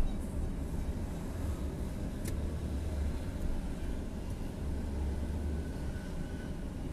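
Steady low rumbling noise with no clear tone, with a faint click about two seconds in.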